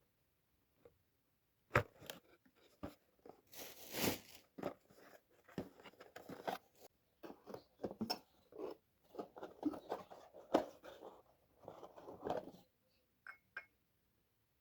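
Close handling noises: a run of short clicks and rustles, with a longer rustle about four seconds in, stopping about two seconds before the end.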